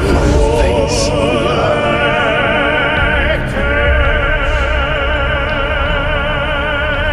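Dark ambient drone music: long wordless vocal notes with heavy vibrato over a low droning bed, with the held note changing about halfway through.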